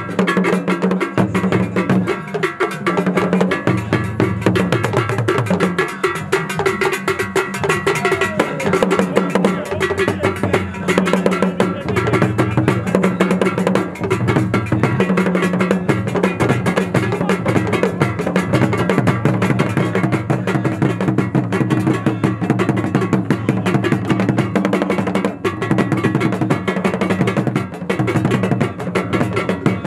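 Drum-led percussion music: drums and a clanking bell keep a dense, steady rhythm with wood-block-like clicks over sustained low notes.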